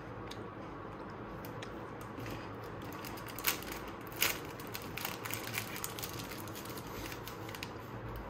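Plastic biscuit wrapper crinkling and crackling as hands fold and flatten it, with two sharper crackles about three and a half and four seconds in.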